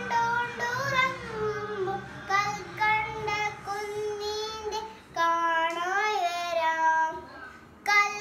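A young boy singing a song, with long held notes that glide up and down.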